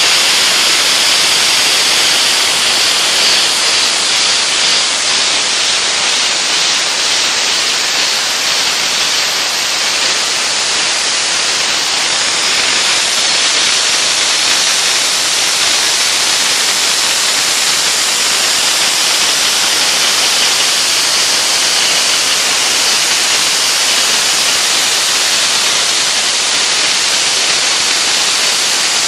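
Dry ice blasting nozzle spraying compressed air and dry ice pellets in a loud, steady hiss, stripping grease and grime off a lacquered metal part without harming the finish.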